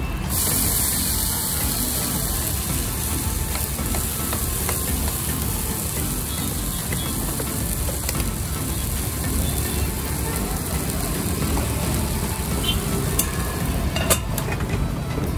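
Handvo batter sizzling in hot oil in a non-stick frying pan on a gas burner, a steady hiss. Near the end come a few sharp metallic clinks as a steel lid is set over the pan.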